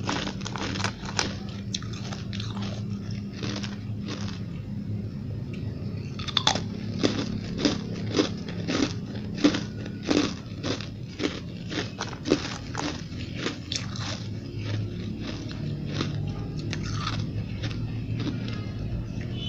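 Biting and chewing of white, snowball-like chunks of ice: a run of sharp crunches, loudest and quickest, about two a second, through the middle, over a low steady hum.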